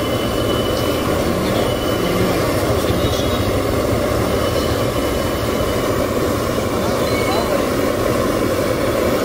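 Steady, loud, low background noise of a busy street-food stall, with faint voices mixed in.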